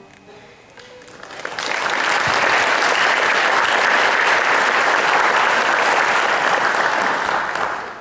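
Audience applauding. It swells up about a second and a half in, holds steady and dies away near the end.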